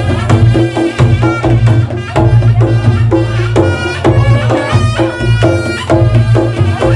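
Reog Ponorogo gamelan music: the kendang drum is played in quick, dense strokes over a sustained low ringing tone, with a pitched melody on top.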